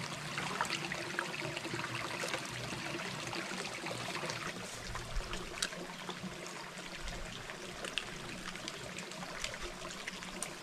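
Forest stream flowing and trickling steadily.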